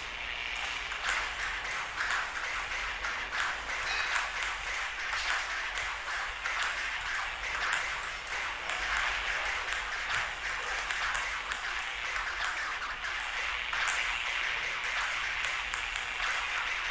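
Table tennis ball clicking off paddles and the table in a fast rally, several sharp irregular clicks a second over a steady hiss.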